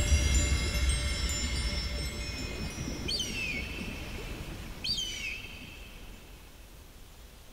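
The fading tail of the soundtrack: a low rumble and high, shimmering chime-like tones dying away, with two short whistled calls, each falling in pitch, about three and five seconds in.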